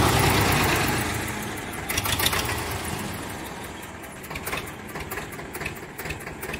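An engine running steadily, loudest at the start and fading over the first few seconds, with scattered metallic clicks and clanks.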